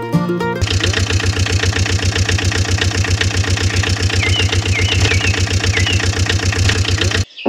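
An engine idling with a steady rapid chugging, about ten beats a second, starting half a second in and cutting off abruptly near the end. Short bird chirps come and go over it around the middle.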